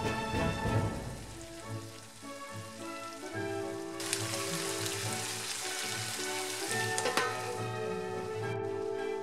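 Stir-fry sizzling in a frying pan, starting abruptly about four seconds in, over background music with sustained notes.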